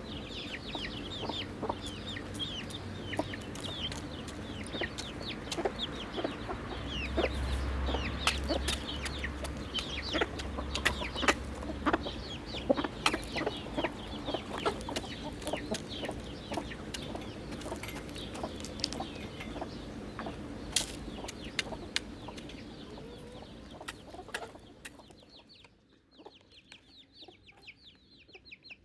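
A flock of chickens clucking and calling as they feed, with many short calls overlapping. The calls thin out and the sound drops away about 25 seconds in.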